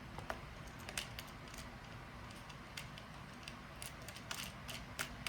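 Scattered small clicks and light taps of a clock movement and its parts being handled as they are screwed back together. The clicks come irregularly, with a small cluster near the end.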